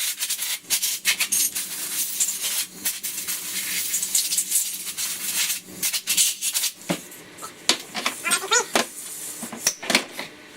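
A short-bristled brush scrubbing briskly over a chainsaw to dust it off, in rapid scratchy strokes with clicks. Near the end it thins to scattered clicks and a few short squeaks.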